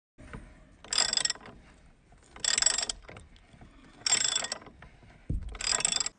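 Socket ratchet wrench tightening a U-bolt nut by hand. It gives four bursts of rapid ratchet clicking, about one every second and a half, with a soft knock just before the last one.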